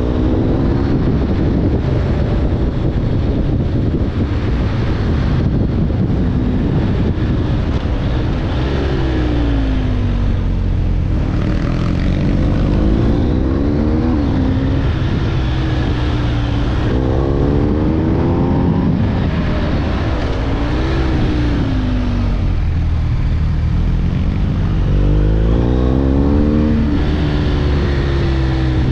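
BMW R 1250 GS boxer-twin engine running on the move, its note rising and falling several times as the rider accelerates and eases off.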